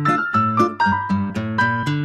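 Background music: a light instrumental tune of plucked or struck notes, several a second, with a bass line beneath.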